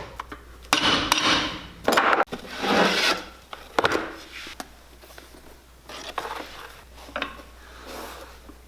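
Rough rubbing or rasping strokes on shoe leather: about four strong strokes in the first four seconds, then fainter, sparser ones.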